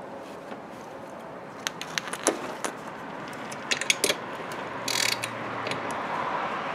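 Hand socket ratchet clicking in short, uneven runs as the bolts of a scooter exhaust are worked back and forth and snugged up.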